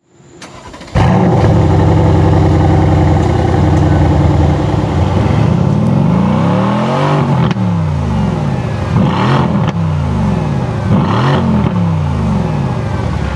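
Mercedes-AMG C63 S Coupe's twin-turbo 4.0-litre V8 running loud and steady, cutting in suddenly about a second in, then revved three times, its pitch rising and falling with each rev.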